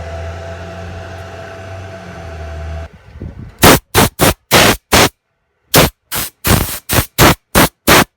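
Craftsman 30-gallon, 2 HP electric air compressor running with a steady hum, then shutting off abruptly about three seconds in, as its pressure switch cuts out at full pressure. A rapid, irregular series of short, sharp noise bursts follows.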